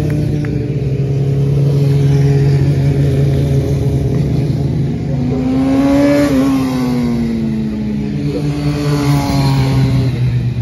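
Racing motorcycles passing one after another at speed. The loudest goes by about six seconds in, its engine pitch rising as it nears and dropping as it passes, and another comes through near the end.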